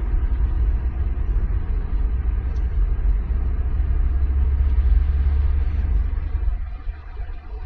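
Car driving along a road, heard from inside the cabin: a steady low rumble of road and engine noise that eases a little near the end.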